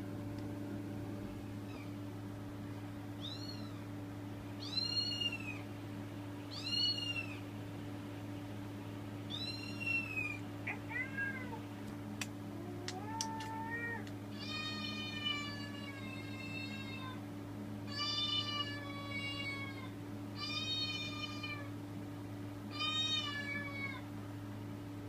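Recorded cat meows from a sound-effects video, played back through a screen's speaker. A dozen or so separate meows come at different pitches, the first few short and arching and the later ones longer and level, over a steady low hum.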